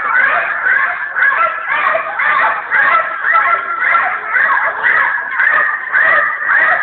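Many children shouting and shrieking at once, a continuous shrill din of overlapping voices.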